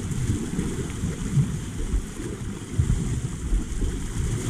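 Wind buffeting the microphone in an uneven low rumble, with sea water washing over shoreline rocks.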